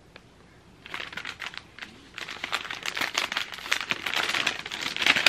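Brown paper gift bag crinkling and rustling as it is handled and pulled open. It starts about a second in and turns into busy, continuous crackling from about two seconds in.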